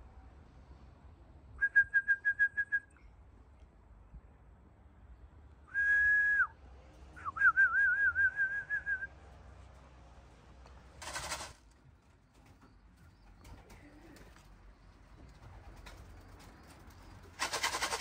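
Whistling to call racing pigeons down to the loft: a quick run of about seven short toots, one held note, then a warbling trill, all at the same pitch. Two short bursts of noise follow, one about eleven seconds in and one near the end.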